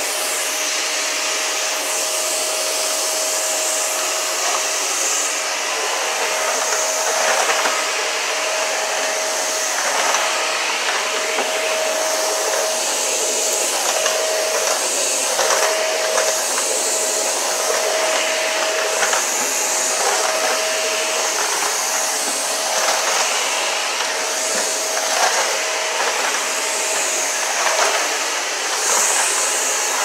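Shark Duo Slim upright vacuum cleaner running steadily while vacuuming a tiled floor: a constant motor rush with a steady whine on top, and brief clicks now and then.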